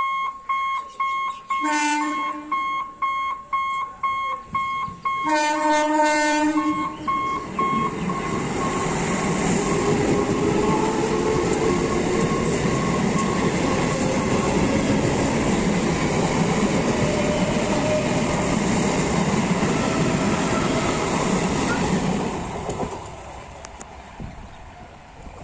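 A level-crossing warning buzzer beeps about twice a second while an electric multiple unit (EMU) local train sounds its horn twice, a short blast and then a longer one. The train then passes over the crossing for about fifteen seconds, a steady loud rush of wheels on rails and carriages, and it fades away near the end.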